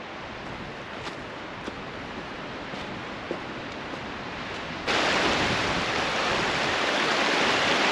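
Faint steady outdoor hiss with a few light ticks, then about five seconds in an abrupt cut to the louder, steady rushing of a shallow river.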